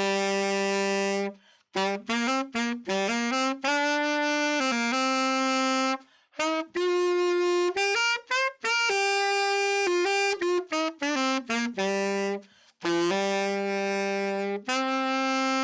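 Amati Super Classic saxophone, refitted with neoprene pads, played solo: a melody in three or four phrases of quick runs and held notes, with short breaks for breath between them.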